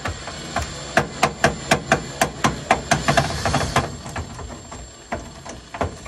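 Craftsman cordless drill-driver driving a self-tapping screw into plastic, with a quick, even run of sharp clicks, about four a second, that thins out after about four seconds.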